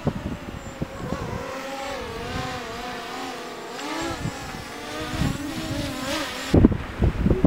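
Small quadcopter drone flying close by, its propeller whine rising and falling in pitch as it manoeuvres. Near the end the whine gives way to gusts of wind on the microphone.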